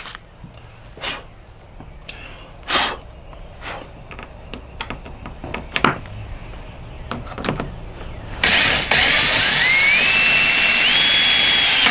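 A power drill driving a screw into a plastic kayak, its clutch set low to avoid over-tightening. The motor runs loudly for the last three seconds or so, its whine rising in steps. Before that come scattered clicks and knocks of handling the screws and parts.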